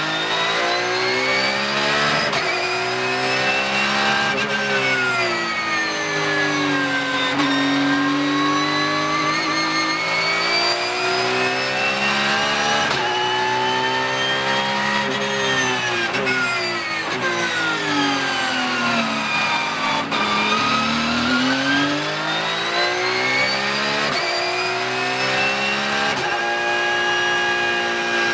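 Porsche 992 GT3 Cup car's 4.0-litre flat-six racing engine at full race pace, heard from inside the cockpit. The engine note climbs for about the first half as the car accelerates, falls as it slows for a corner about two-thirds through, then climbs again.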